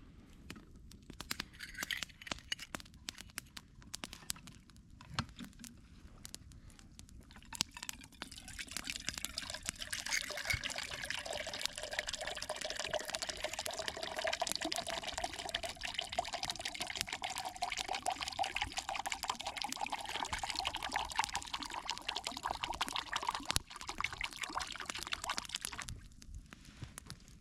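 Water poured steadily into a container for about eighteen seconds, starting about eight seconds in, with a tone that rises slowly in pitch as the vessel fills; light handling clicks come before it.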